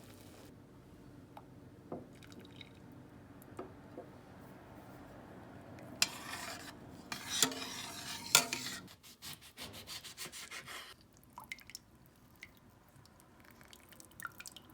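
Kitchen handling sounds: scattered light clicks and knocks, with a few seconds of rubbing or scraping noise and sharp knocks in the middle.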